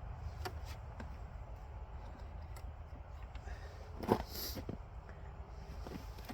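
Handling noises of mower parts being worked on by hand: scattered light clicks and scrapes, with one louder clink about four seconds in, over a low steady rumble.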